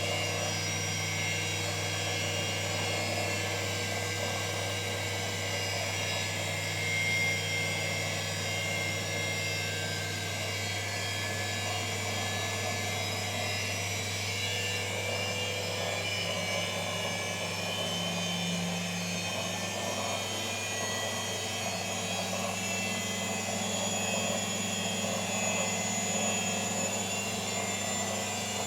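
Indesit WISL103 washing machine running continuously: a steady hum with a high-pitched whine over it, without pauses.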